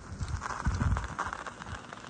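Wind buffeting the microphone during a bicycle ride on a snowy road, in low rumbling gusts that peak about a second in, with a rapid clatter of small knocks and rattles from the ride.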